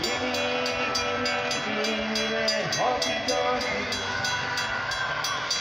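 Railroad grade-crossing warning bell ringing rapidly, about three strikes a second, over the steady hum of a Metra commuter train at the crossing.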